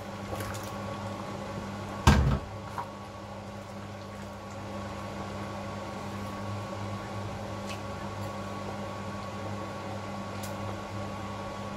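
Fish pieces tipped from a bowl into a steel cooking pot, landing with one heavy knock about two seconds in, followed by a few faint taps as a wooden spoon stirs the soup. A steady low electrical hum runs underneath.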